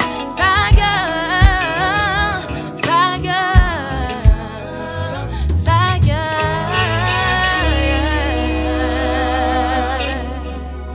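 Live Afro-soul band music with a voice singing wordless runs that glide up and down. A few low drum hits sound in the first half, and a long held bass note comes in near the end.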